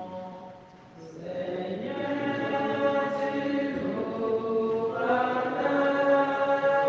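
Voices singing a slow, chant-like communion hymn in long held notes. The singing dips briefly about a second in, then comes back louder.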